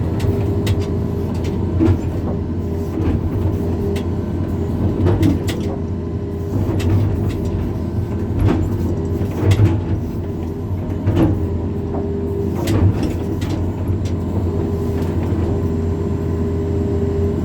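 Backhoe (hydraulic excavator) engine running steadily at working revs while it digs, with irregular knocks and clanks every second or two.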